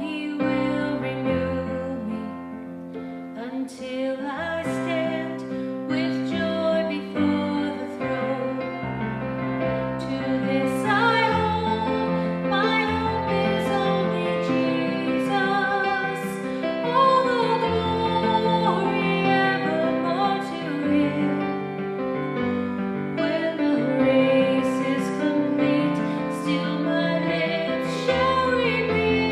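Music: a slow, tender song with a woman singing over instrumental accompaniment.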